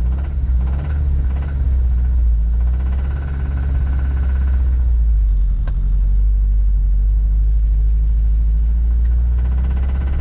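Mazda B2000 pickup's four-cylinder engine running with a steady low rumble, a little uneven in the first few seconds. It is idling poorly, which the owner puts down to the carburetor.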